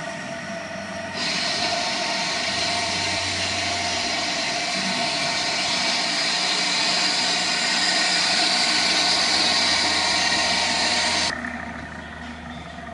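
Westfalia high shear inline mixer running on test, its electric motor giving a steady mechanical hum with fixed tones. A loud, even hiss comes in abruptly about a second in and cuts off suddenly about a second and a half before the end, leaving the lower hum.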